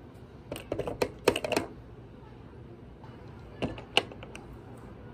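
Quick runs of small sharp clicks and clinks as a metal watch band is handled on the wrist: a flurry from about half a second in to nearly two seconds, and a few more near four seconds.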